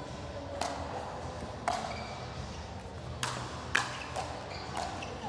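Pickleball rally: paddles striking the ball in a series of about five sharp pops at irregular spacing, the loudest a little under four seconds in.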